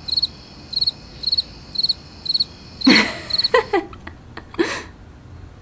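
Cricket chirping steadily, about two high chirps a second, each a short trill of a few pulses. About three seconds in, a brief louder burst of sound breaks in and the chirping stops.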